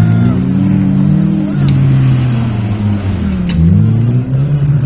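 Suzuki Vitara 4x4 engine running hard off-road, its pitch rising and falling as the throttle is worked.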